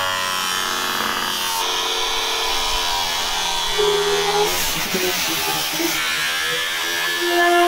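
Angle grinder with a cutoff wheel cutting through car-body sheet steel, a steady motor whine whose pitch shifts several times as the wheel's load changes.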